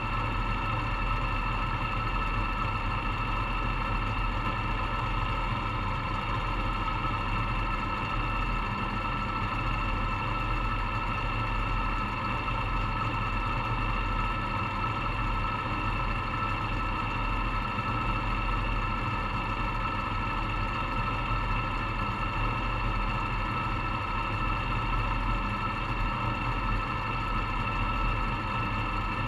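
Dirt modified race car's V8 engine idling steadily with no revving, heard from inside the open cockpit.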